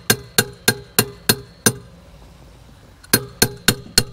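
Sharp, ringing taps of a hand tool struck against a pedal-kit crank arm, knocking it further onto its spindle so both crank arms sit at the same length. About three taps a second: a run of six, a pause of about a second and a half, then four more.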